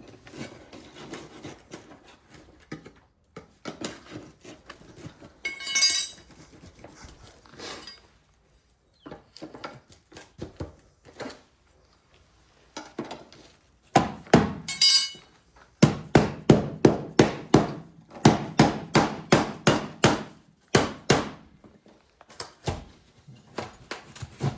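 Small hammer tapping an aluminum cover strip to knock it loose from a door frame. Scattered knocks and a short metallic rattle come first, then over the second half a quick run of sharp taps, a few a second.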